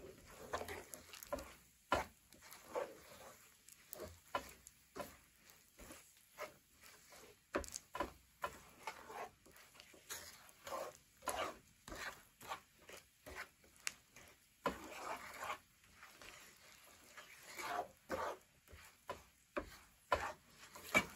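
Wooden spatula scraping and stirring chopped peanuts through melted sugar in a nonstick frying pan: faint, uneven scraping strokes, about one or two a second.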